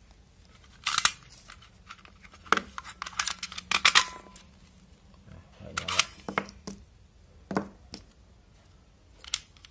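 Sharp plastic clicks and knocks as 18650 lithium-ion cells are pressed into and pulled out of the spring-loaded slot of a small plastic battery charger, several handling clicks spread unevenly. The cells are being swapped to test whether a dead cell will charge.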